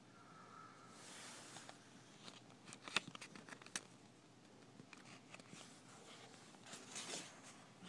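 Faint page-turning of a cookbook: a soft paper swish about a second in and another near the end, with a run of small taps and clicks in between.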